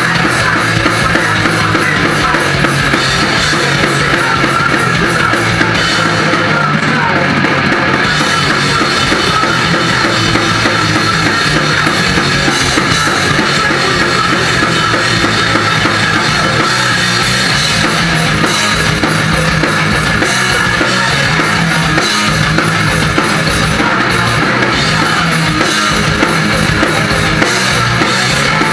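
Crossover thrash band playing live at full volume: distorted guitars and bass over fast, steady drumming.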